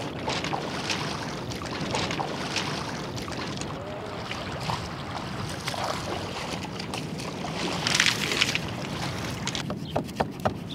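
Shallow river water splashing and sloshing as a large mahi-mahi is rinsed and dragged through it by someone wading, over a steady rush of water and wind. A louder splash comes about eight seconds in, and there are a few sharp clicks near the end.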